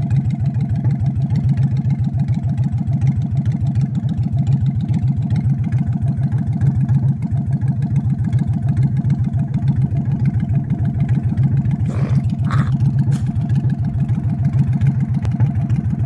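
An engine running steadily, a low hum of fast even pulses that holds the same pitch throughout, with two short knocks about twelve seconds in.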